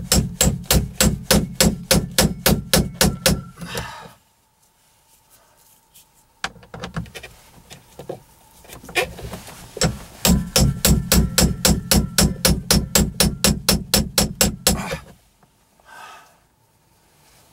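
Ratchet tool clicking in steady runs of about six clicks a second as it turns a fastener behind a car's overhead console: one run at the start and a longer one from about ten seconds in, with a few faint knocks in the pause between.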